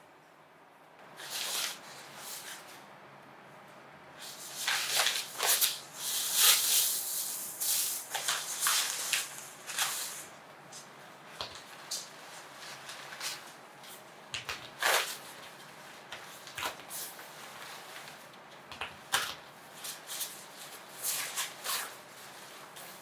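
Irregular rustling, light knocks and clicks of things being handled in a small room, busiest in the first half and scattered after.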